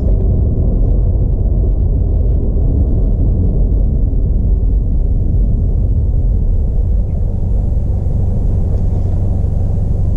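Subaru WRX's turbocharged flat-four engine running, its exhaust giving a steady, deep rumble.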